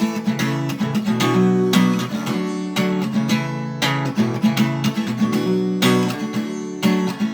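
Acoustic guitar strumming chords between sung lines, with strokes coming every half second or so.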